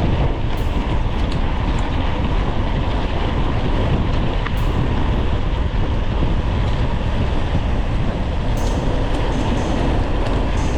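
Steady wind rush and rumble on an onboard action camera's microphone while a mountain bike rides a dirt trail.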